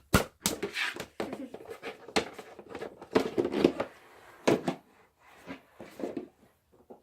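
Slime being handled: irregular sticky clicks, squelches and crackles as a piece of foam-bead slime is pulled apart and pressed into the mixing bin, busiest around the middle.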